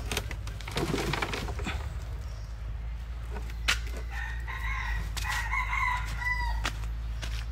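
A rooster crows once: a long call starting about four seconds in and lasting nearly three seconds. Under it are scattered soft knocks and crumbling from soil and roots being worked loose from a pot, and a steady low rumble.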